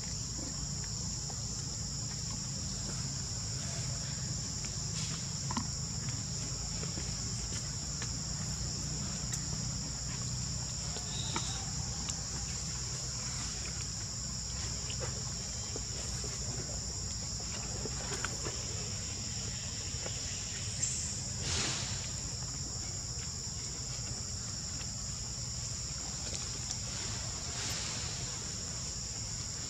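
Steady high-pitched insect chorus droning without a break, over a low steady rumble, with a few faint clicks.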